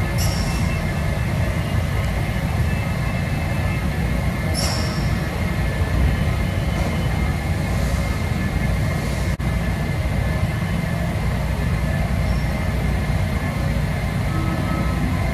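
Washington Metro train standing at an underground station platform, its equipment giving a steady low rumble with a faint whine above it. Short high hisses come at the start and again about four and a half seconds in.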